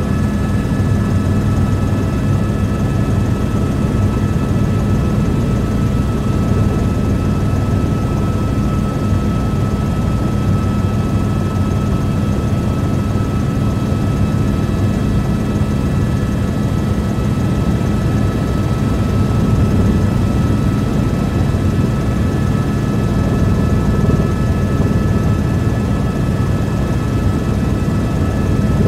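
Helicopter in flight heard from on board: steady engine and rotor noise with an unchanging hum.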